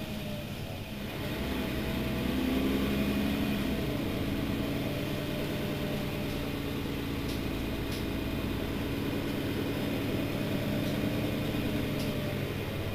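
Mercedes-Benz Citaro city bus's diesel engine idling at a standstill, heard from behind. It grows a little louder about two seconds in, then holds steady.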